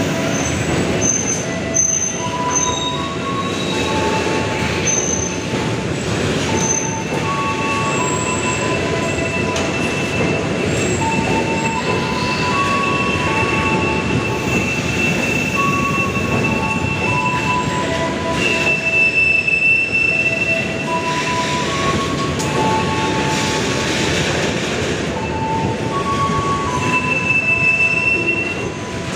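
Container freight train rolling past: a steady rumble of wheels on rail, with many short, high metal squeals from the running gear at several different pitches, one high squeal holding for several seconds midway.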